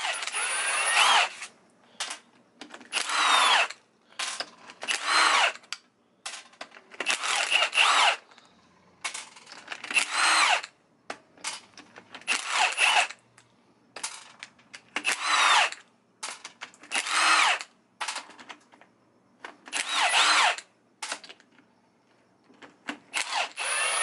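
Milwaukee M18 cordless impact driver running in about a dozen short bursts, its pitch gliding in each, as it backs out the bolts of a quick-change differential's rear gear cover one after another.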